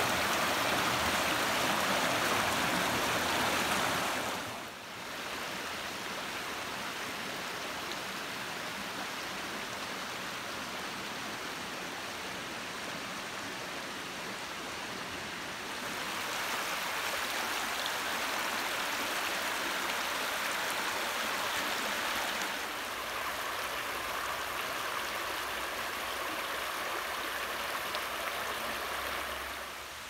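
Running water of a shallow, rocky forest stream: a steady rush and splash over stones. It drops in level a few seconds in, grows louder about halfway, and eases again near the end.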